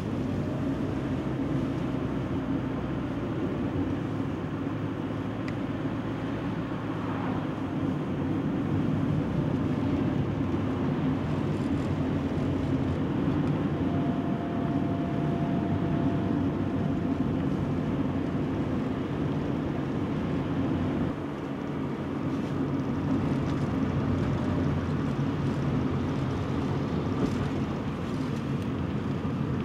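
Steady road noise inside a moving car: engine and tyres running on pavement, with a faint steady tone for a few seconds midway.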